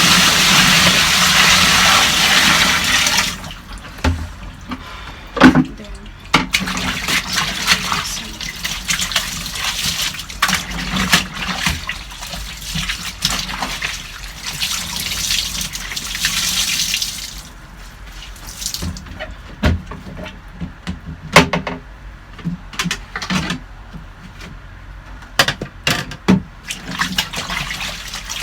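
Water gushing strongly for about three seconds, then running and splashing unevenly, with scattered knocks and clatters.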